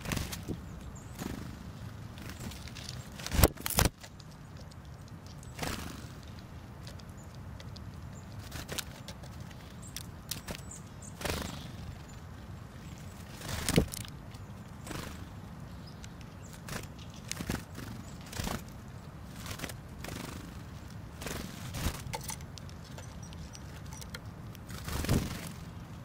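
Tits (great tits among them) landing at a pile of sunflower seeds on snow close to the microphone, pecking and taking off: irregular sharp taps, clicks and wing flutters every second or two, with a couple of louder knocks, over a steady low background rumble.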